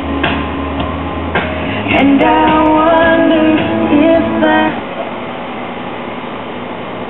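1965 Magnavox Astro-Sonic console stereo playing an FM station, a song with female singing and guitar, while the station is tuned. About two-thirds of the way through the music cuts off into a steady hiss as the dial moves between stations. The FM reception is weak, which the owner says has dropped to a poor level.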